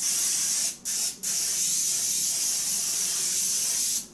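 Aerosol can of cooking spray hissing as it greases a casserole slow-cooker crock: two short bursts, then one long steady spray of about three seconds.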